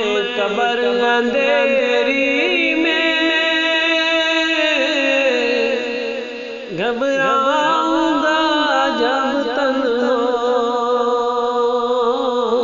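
Naat singing: a voice draws out long, wavering held notes in a wordless melismatic passage, breaking off briefly about six and a half seconds in before going on.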